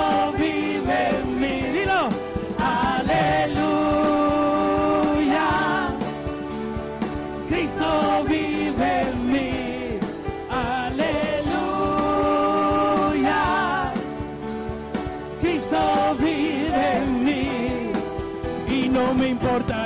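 Live gospel worship music: a man sings over a band with a steady beat, twice holding a long, wavering note.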